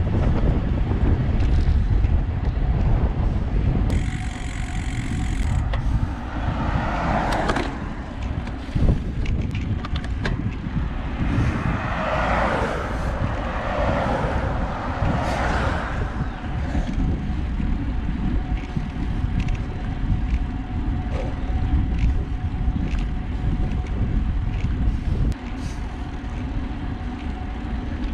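Wind buffeting the microphone of a handlebar-mounted camera on a road bike at speed, over the hiss of tyres on asphalt. A car passes, its noise swelling and fading around the middle.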